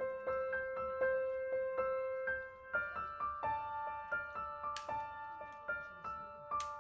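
Gentle solo piano background music, soft notes struck one after another and left ringing. Two short sharp clicks cut through it in the second half, a little under two seconds apart.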